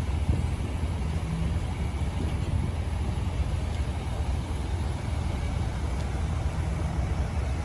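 2000 Chevrolet 2500 pickup truck engine idling steadily.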